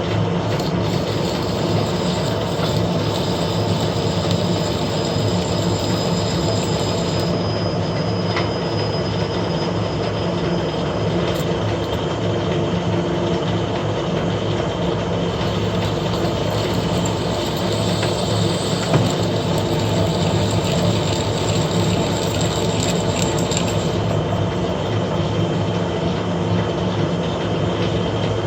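Metal lathe running steadily while an internal thread is cut with the spindle in reverse: a constant drive hum, with a thin high whine over the first ten seconds or so and changes in the higher cutting noise partway through.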